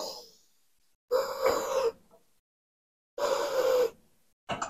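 A man's heavy, labored breathing as he strains through a weight-training set near failure: two long, hissing breaths about two seconds apart, then a short one near the end.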